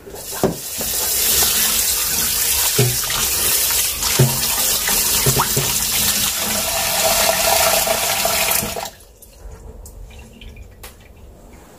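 Kitchen tap running hard into a sink for about eight seconds, with a few light knocks, then shut off; after that only a few faint clicks.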